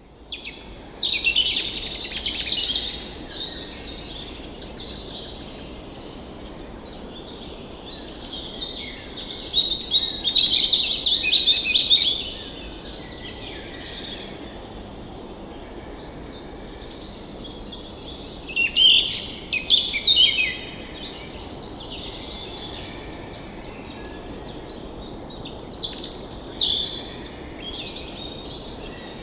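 Songbirds singing and chirping in several loud bouts over the steady rush of a forest stream's running water.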